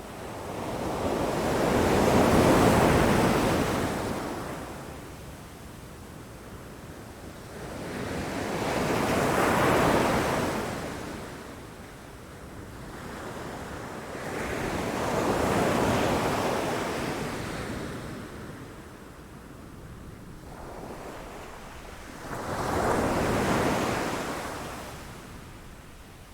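Ocean waves crashing against rocks on the shore, four waves surging and drawing back, each swell rising to a peak and fading away over several seconds.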